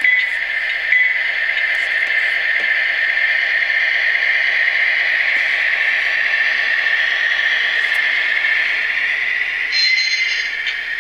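Sound decoder in an HO-scale GE GEVO model locomotive playing a steady diesel-locomotive running sound through its small speaker, with a bell striking twice in the first second and a horn sounding about ten seconds in.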